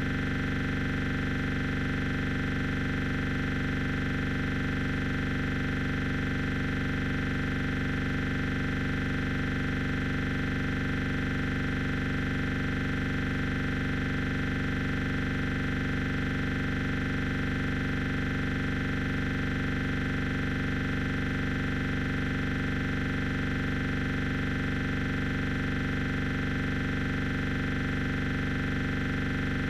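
A steady, unchanging drone made of several held tones, with no change in level or pitch.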